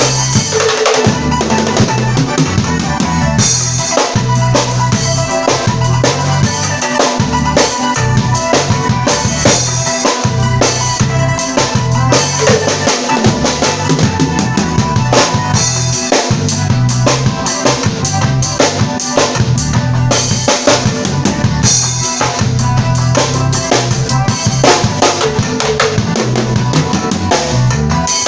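Drum kit played along to a worship song, a steady beat of bass drum and snare over the recorded music.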